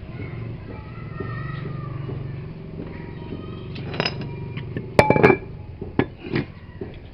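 Knocks and clinks of hard objects being handled, several in the second half and loudest about five seconds in, over a steady low hum.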